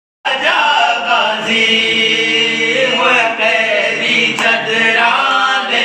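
A man singing unaccompanied in a devotional, chant-like style, drawing out long held notes that waver in pitch.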